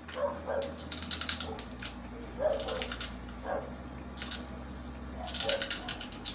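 Close-miked eating sounds of a person chewing chicken sisig and rice: wet, crackly chewing and lip smacks in several short bursts.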